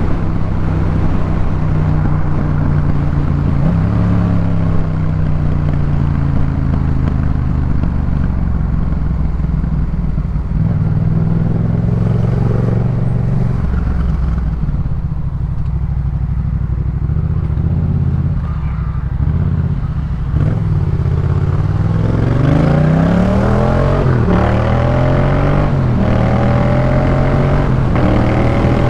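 Yamaha MT-07's parallel-twin engine through a Jeskap K4 full aftermarket exhaust, running at part throttle while riding, with the engine note changing with the throttle. Near the end it accelerates through the gears, the pitch rising and dropping back at each shift.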